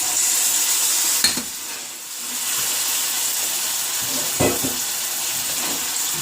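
Yogurt-marinated chicken pieces sizzling in hot oil with fried onion and spice paste, a steady frying hiss. Two stirring knocks in the pan, about a second in and past halfway.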